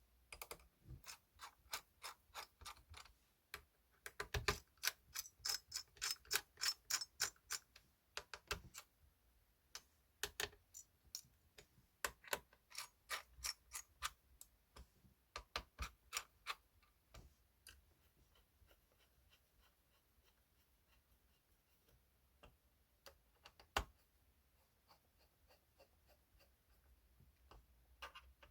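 Light, sharp clicks in quick irregular runs, several a second, thinning out to occasional clicks after about seventeen seconds, with one louder click near the end.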